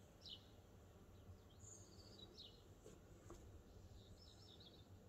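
Near silence with faint outdoor ambience and a few distant bird chirps, in three short clusters.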